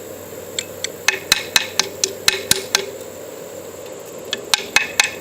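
A light 3D-printed PLA plastic hammer tapping a nail into wood in quick runs of about four sharp, light strikes a second, with a pause in the middle. The hammer is too light to drive the nail well, and the nail barely moves with each blow.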